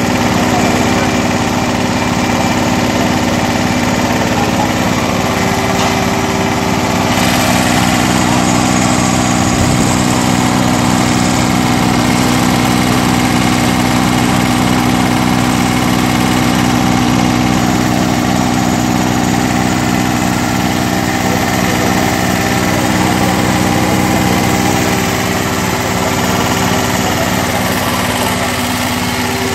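Portable milking machine running steadily: a small single-cylinder petrol engine driving the vacuum pump, giving a continuous, even engine drone.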